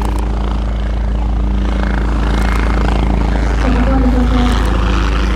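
Agusta Caweel CW-86 aircraft sound effect: a steady engine and rotor drone with a constant deep rumble under several steady humming tones, swelling slightly about four seconds in.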